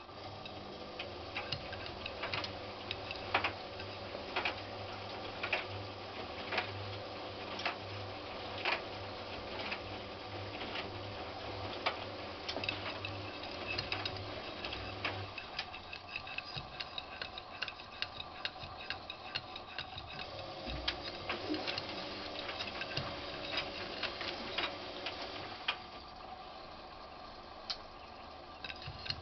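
Washing machine running: a low pulsing hum from the turning drum, with a sharp click about once a second, then quicker, more irregular clicks for the second half.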